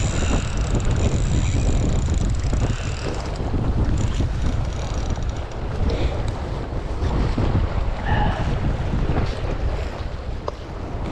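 Wind buffeting the microphone in a steady low rumble, with a few faint clicks and short squeaks over it.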